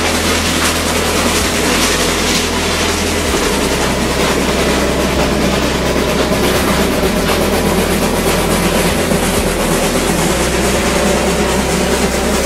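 The Cumbres & Toltec steam-powered rotary snowplow OY and the steam locomotive pushing it pass close by while clearing deep snow. The sound is a loud, steady rush of train machinery and steam.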